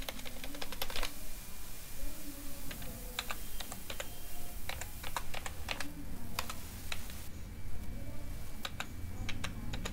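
Typing on a computer keyboard: irregular keystrokes coming in short runs with brief pauses between.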